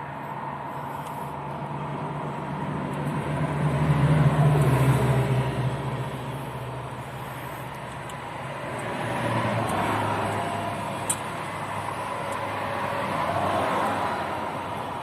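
Road traffic passing on a highway: vehicles swell up and fade away three times, the loudest about four seconds in with a deep engine and tyre hum. A single sharp click comes about eleven seconds in.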